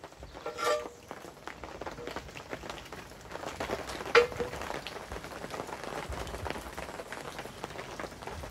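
Two metal clanks, each ringing briefly, as a metal grill grate is handled and lifted off a fire pit; the second, about four seconds in, is the louder. Under them runs a dense patter of small ticks, like rain on a tarp overhead.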